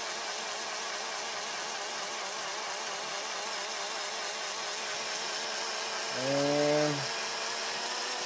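Steady motor whirr with a slightly wavering pitch as a valve is ground against its seat with grinding compound. A short voice cuts in near the end.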